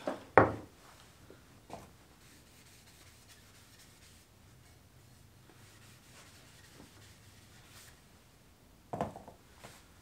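A sharp knock about half a second in, then faint rubbing of a cloth rag dampened with mineral spirits, wiping sanding dust off the wood between shellac coats; another short knock and rustle near the end.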